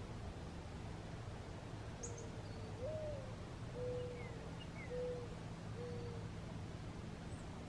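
A bird's low cooing song, starting about two seconds in: a soft opening note, a coo that rises and falls, then three steady lower coos. A few faint, short, high chirps from small birds come alongside.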